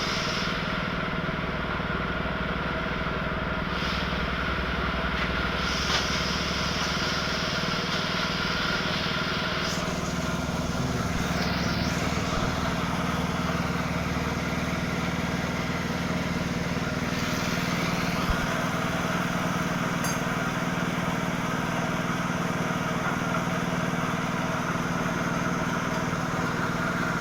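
Honda K56 150 cc single-cylinder motorcycle engine, as in the Sonic 150R, Supra GTR 150 and CB150R, running steadily.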